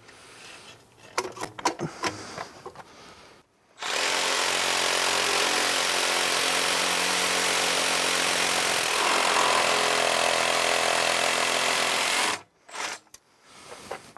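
Cordless reciprocating saw cutting through a seized steel pivot bolt in a rear suspension wishbone, running steadily for about eight seconds, its tone shifting partway through. A few knocks come before it starts and after it stops as the saw is set against and taken off the bolt.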